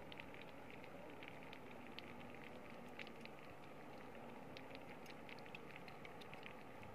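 Faint, irregular crackling and ticking from shallow seawater among rocks, several clicks a second over a low steady hiss.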